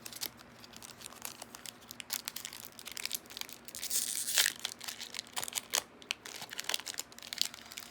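Foil trading-card booster pack wrapper crinkling and rustling in the hands, with many quick crackles and a louder rustle about four seconds in.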